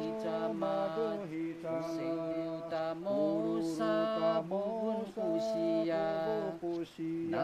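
A slow, chant-like song with long held notes: men singing of their mountains and the stream they draw water from.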